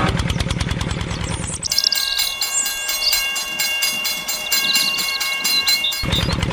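Toy train sound effects: a steady multi-tone horn chord with fast, even clicking and high whistling glides, lasting about four seconds. Before and after it, a small engine's rapid low putter.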